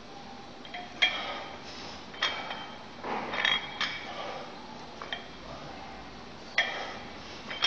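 Iron weight plates on plate-loaded dumbbells clinking as the dumbbells are curled: about seven sharp metallic clinks, each with a short ring, at uneven intervals of one to one and a half seconds.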